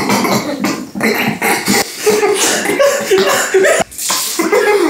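Men with mouths full of water stifling laughter through closed lips, then spluttering as one of them bursts and sprays the water out near the end.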